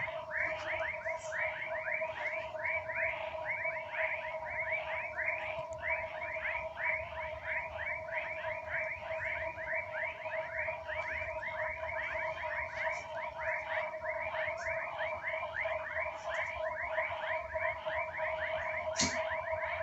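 A chorus of frogs and toads calling after rain: many rapid, repeated falling calls, several a second, over a steady droning tone. There is a single sharp click near the end.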